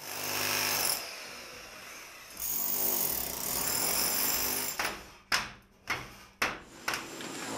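Corded electric demolition hammer running against a masonry wall, in two spells of harsh, steady hammering. Four sharp knocks follow, about half a second apart, in the second half.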